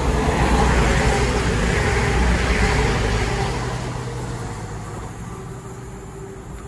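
CrossCountry Voyager diesel-electric multiple unit passing through a station at speed without stopping. A rushing noise with a low drone under it builds at once, is loudest in the first few seconds, then fades steadily as the train moves away.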